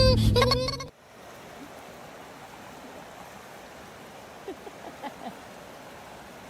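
Music that cuts off suddenly about a second in, followed by a steady soft rushing noise with a few faint short squeaks near the end.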